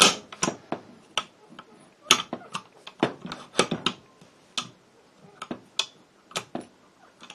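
Steel parts of an SKS rifle clicking and clacking as the action is handled and parts are fitted onto the receiver: an irregular string of sharp metallic clicks and knocks, the loudest right at the start.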